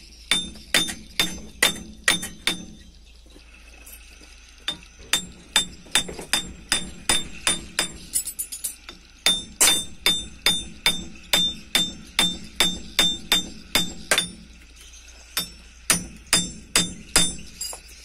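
Steady hammer blows on the steel front wheel hub of a Toyota, about three a second, each ringing sharply, while the worn front wheel bearing is being driven out. The blows come in three runs with short pauses between.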